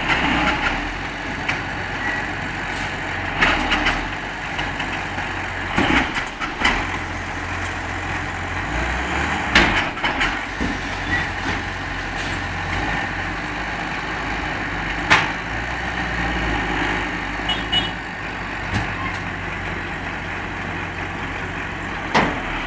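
New Holland T8040 tractor's diesel engine running steadily as it slowly pulls a raised tipping trailer forward while the grain load slides out. Several sharp knocks and clanks sound over the engine.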